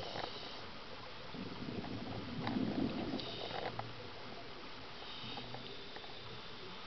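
Scuba diver breathing through a regulator underwater. Short hisses of inhaled air come at the start, around three and a half seconds in and around five seconds in, with a low bubbling rumble of exhaled air between them.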